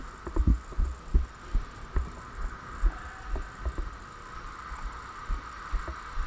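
Irregular low, dull thuds, roughly one or two a second, from footsteps and body movement jostling a body-worn camera, over a steady hum.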